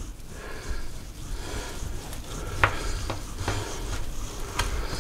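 Chef's knife slicing through a roast beef joint on a cutting board: soft cutting noise with a few light clicks of the blade and fork against the board in the second half.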